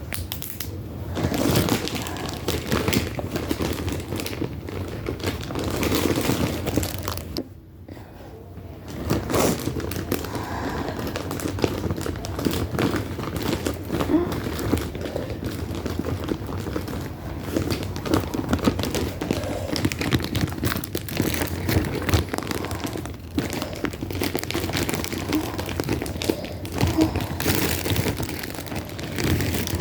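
Crinkling and rustling from objects being handled, with many small clicks and knocks; it drops off briefly a little over seven seconds in.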